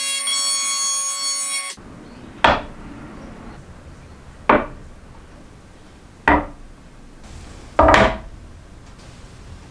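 Makita cordless electric hand planer running with a steady high whine that stops abruptly about two seconds in. Then a steel straightedge is set down on the flat wooden board four times, each a sharp knock about two seconds apart, the last one a little longer.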